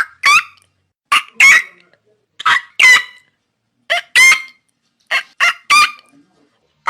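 Pelican calls: loud, short honking cries, mostly in pairs about a second apart, with the last group a run of three.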